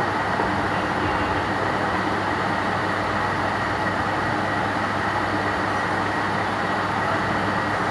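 Steady rushing drone with a low hum beneath it, even in level and without breaks.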